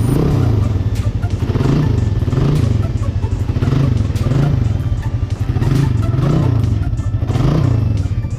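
Suzuki Raider 150's single-cylinder four-stroke engine idling, its note swelling and easing a little more than once a second; the engine runs smooth on freshly changed oil.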